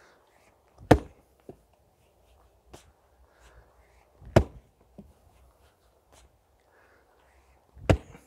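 Ochsenkopf Big Ox splitting maul striking a thick linden round three times, about three and a half seconds apart, each blow a heavy, sharp thud of steel into wood.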